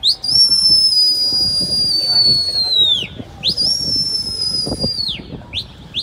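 A pigeon keeper's loud whistling to his flock in flight: two long high whistles, each snapping up in pitch, held, then sliding down at the end, followed near the end by a quick run of short rising whistles.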